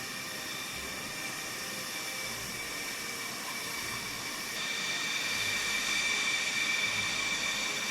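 Jet engine running with a steady high whine over a rushing hiss; the whine grows louder a little past halfway.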